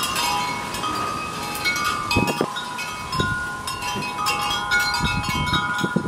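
Wind chimes ringing at irregular moments in the breeze: many overlapping metal tones struck again and again, with low rumbles underneath.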